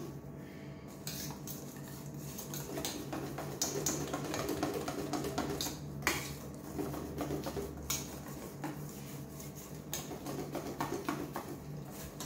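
Wire whisk beating thick carrot cake batter in a stainless steel bowl, the wires clicking and scraping rapidly against the metal sides.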